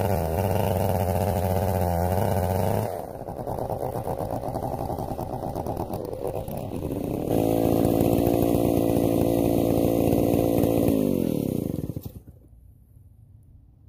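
Stihl 070 chainsaw's two-stroke engine running at high speed, dropping to idle about three seconds in, revving up again for about four seconds, then winding down and shutting off.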